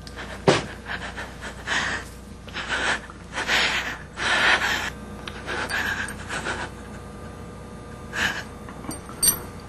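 A woman gasping and breathing hard in a string of ragged breaths. A sharp crack sounds about half a second in, and a smaller click near the end.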